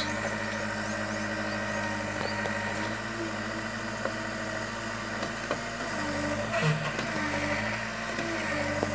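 Diesel engine of a Case backhoe loader running steadily, its pitch shifting briefly about six to seven seconds in.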